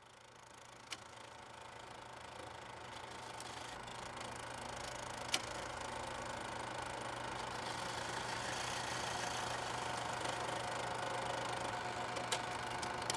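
Steady mechanical running noise with a low hum, fading in gradually from silence over the first several seconds and then holding steady, with a few sharp clicks, one about a second in and a louder one about five seconds in.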